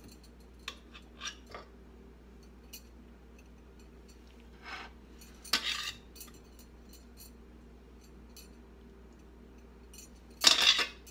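A spoon or utensil clinking and scraping against a ceramic plate while sauce is drizzled over sliced teriyaki chicken: a few light clinks, two short scrapes around the middle, and a louder scrape near the end.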